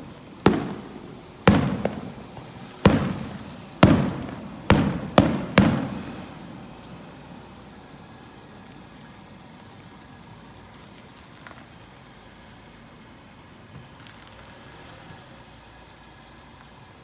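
Fireworks shells bursting: seven booms in the first six seconds, each trailing off, the last three close together, then a lull with only a steady background.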